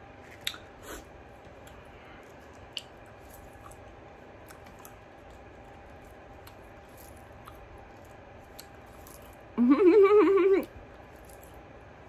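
Faint mouth clicks from someone quietly chewing a mandarin orange, then about ten seconds in a single 'mmm' of enjoyment, held for about a second at a fairly steady pitch.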